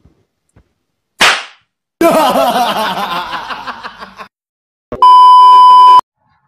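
Edited-in comedy sound effects: a short sharp hit about a second in, a wavering sound effect that fades away over about two seconds, then a loud, steady, high beep lasting about a second near the end.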